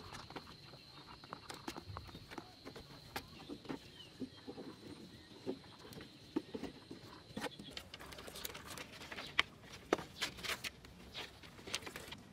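Irregular knocks and clicks of bamboo poles and wire ties being handled and lashed onto a bamboo roof frame, getting busier and louder after about eight seconds. A faint steady high tone runs underneath for the first seven seconds or so.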